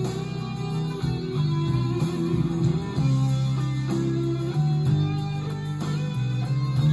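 Guitar-led instrumental rock music played from a cassette on a Teac C-3RX deck, through a Denon PMA-1500R amplifier and Focal Sib-T speakers. It is picked up by a phone's microphone in the room.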